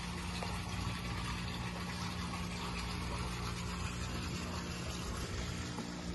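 A steady mechanical hum with an even hiss over it, running unchanged throughout.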